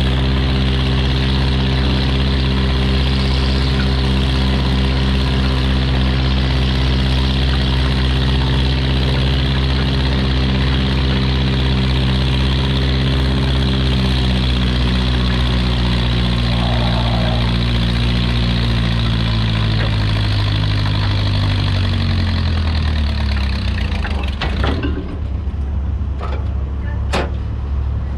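An engine runs steadily at idle. Its pitch sinks slowly over about ten seconds, and the engine stops about three-quarters of the way in. A few sharp knocks follow near the end.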